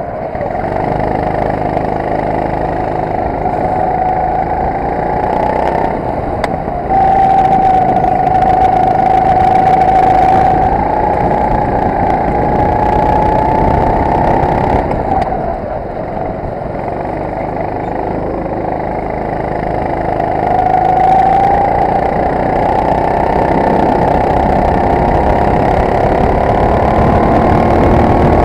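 Go-kart's Honda engine running hard, heard from on board, its pitch climbing on the straights and dropping back as it slows for corners. It gets louder about seven seconds in.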